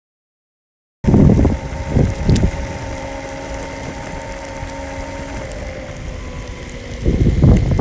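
Direct-drive electric skateboard motors whining at a steady pitch while riding, over the rumble of the wheels on the road. Loud gusts of wind on the microphone come in after a second of silence and again near the end.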